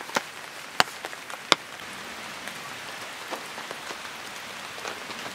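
Steady rain falling on a campsite tarp, with three sharp taps in the first second and a half.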